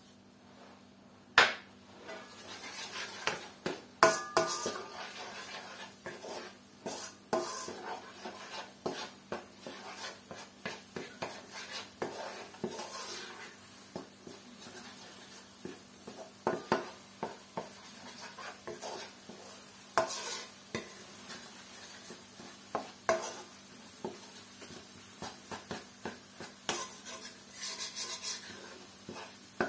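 Wooden spatula stirring and scraping scrambled eggs in a nonstick wok, with frequent irregular taps and knocks against the pan over a light sizzle. A single sharp knock about a second and a half in is the loudest sound.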